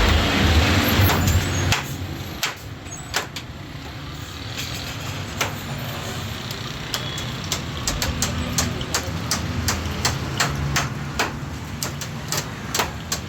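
A low rumbling noise for about the first two seconds, then a run of sharp clicks and knocks, sparse at first and coming about one to two a second in the second half.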